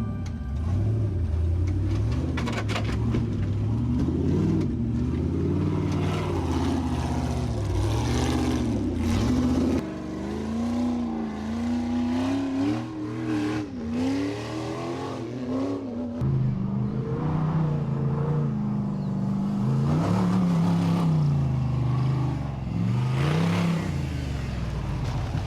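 A vehicle engine sound revving up and down continuously, its pitch rising and falling with the throttle, with a few sudden changes in pitch along the way.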